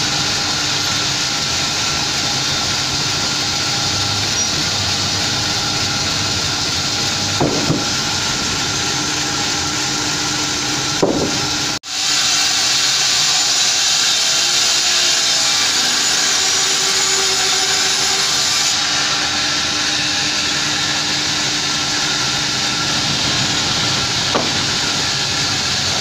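A log band sawmill running loud and steady, its blade and dust extractor making a continuous rushing whine. There are a couple of brief knocks, and the sound drops out for an instant just before halfway.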